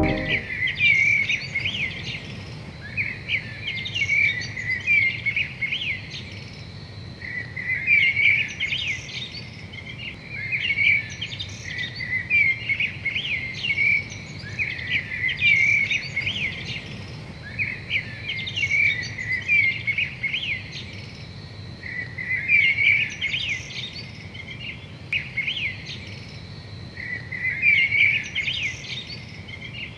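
Songbirds singing outdoors: short chirping, warbling phrases that recur every few seconds, over a faint low background hiss.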